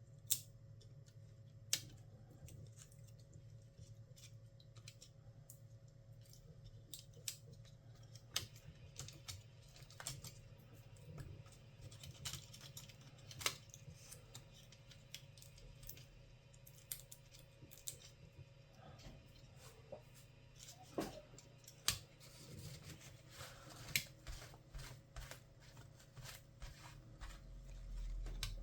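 Irregular light clicks and taps of small tools and parts being handled while an HP EliteBook 1040 G4 laptop is taken apart, sparse at first and more frequent later, over a low steady hum.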